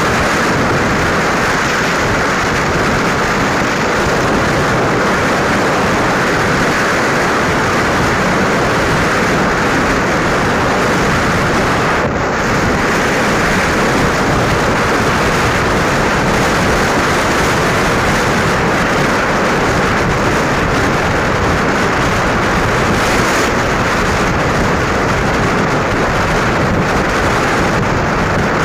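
Steady wind rushing over a phone microphone on a moving motorcycle, with road and engine noise underneath.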